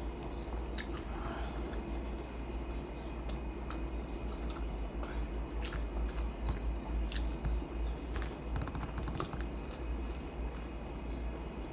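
Close-miked chewing of food, with many scattered sharp mouth clicks, over a steady low hum.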